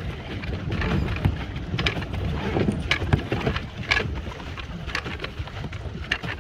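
Pedal boat under way: water splashing and knocking against the hull at an irregular pace, roughly once a second, over a steady low wind rumble on the microphone.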